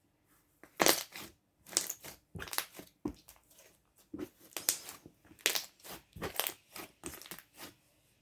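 Slime being squeezed and worked by hand, giving an irregular run of sharp, wet air-bubble pops starting about a second in.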